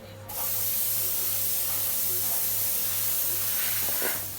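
A cleaning spray jet hissing steadily on range-hood parts for about four seconds, stopping just before the end.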